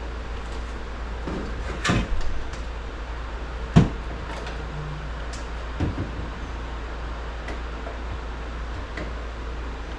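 A few sharp knocks and thumps, the loudest about four seconds in, with a couple of fainter ticks, over a steady low hum.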